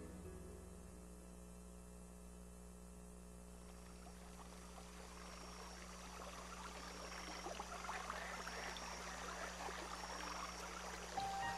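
A gap between background music pieces. Low steady tones hold underneath, and a soft, water-like trickling texture rises in from about four seconds in. Melody notes of the next piece begin right at the end.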